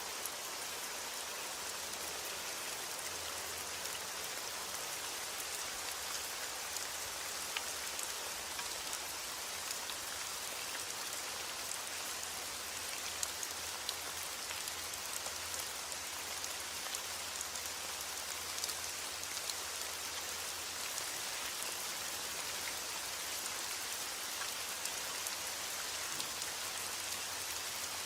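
Steady heavy rain: an even hiss of falling rain with many small drop taps scattered through it.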